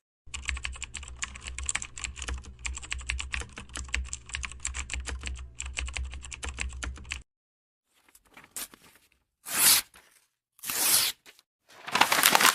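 Typing on a computer keyboard: a fast, uneven run of key clicks for about seven seconds, over a low hum. After a short pause come several separate short noisy bursts, the last and longest near the end.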